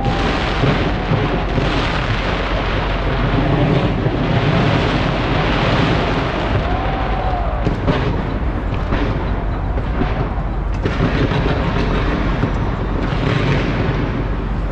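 A continuous barrage of fireworks bursting and crackling, a dense rumble with no real pause.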